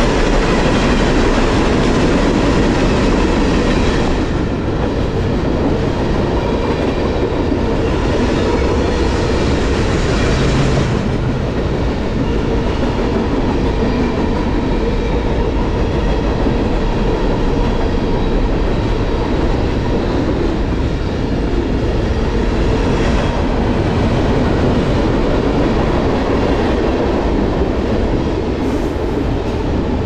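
Freight cars of a CSX mixed manifest train, hoppers and then autoracks, rolling past close by: a steady noise of steel wheels running on the rails.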